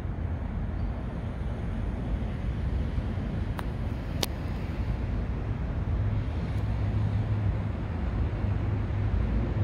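Steady low outdoor rumble, with a deeper hum growing stronger about six seconds in and two faint clicks a little before halfway.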